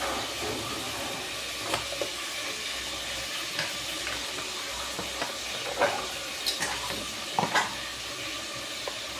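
Spice paste sizzling in oil in a pot on a gas burner, with ginger paste just stirred in: a steady sizzle broken by scattered small pops and ticks.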